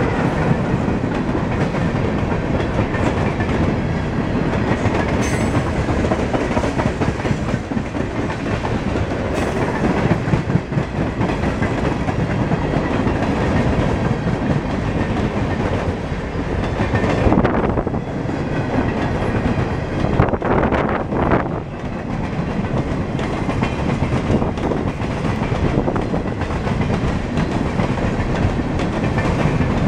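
Freight train cars, boxcars and centerbeam flatcars, rolling past close by: a steady, loud noise of steel wheels running on the rails, with a couple of brief louder moments about two-thirds of the way through.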